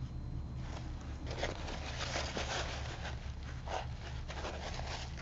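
Faint, irregular scratching and rustling of a synthetic round brush scrubbing water into watercolor paper and a paper towel blotting to lift the loosened paint, over a steady low hum.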